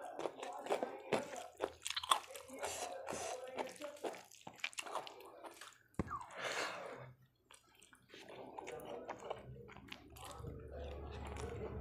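Close-miked chewing and biting of rice and rajma (kidney-bean curry) eaten by hand, a quick run of short clicks, with a brief lull about seven seconds in. A steady low hum comes in over the last few seconds.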